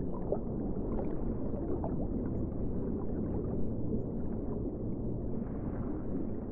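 Underwater ambience: a steady muffled low rumble and wash of water, with faint small bubbling blips scattered through it.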